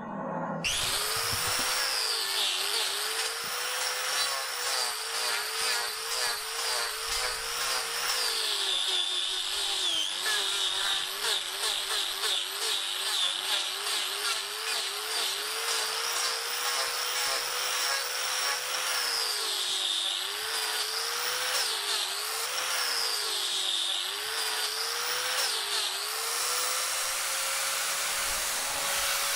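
Electric angle grinder fitted with a hoof-trimming disc, cutting a cow's hoof horn. The motor's whine sags in pitch each time the disc bites and recovers as it comes off. Near the end it runs steady at full speed, unloaded.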